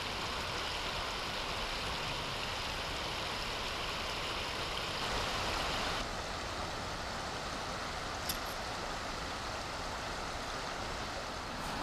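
Steady rush of running water from a mountain river or waterfall, its sound shifting abruptly about six seconds in.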